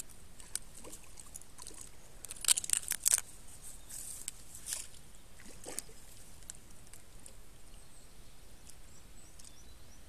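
A hooked carp splashing at the water's surface while being played to the net: a quick run of sharp splashes about two and a half to three seconds in, then a few lighter splashes.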